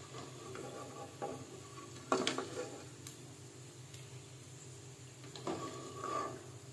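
A stainless mesh strainer and slotted metal skimmer clinking and scraping against a frying pot as fried rice turon are lifted out of the oil, over a light sizzle. The loudest clink comes about two seconds in, and a short ringing scrape comes near the end.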